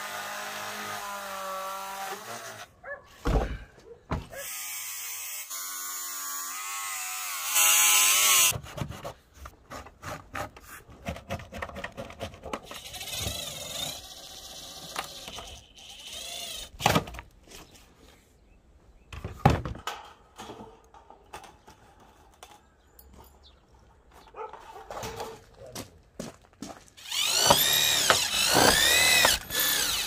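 A circular saw runs and cuts through a painted steel panel, then a cordless drill-driver runs in short spurts driving screws into the panels, with a few sharp knocks. Near the end the drill runs longer and louder, its pitch rising and falling.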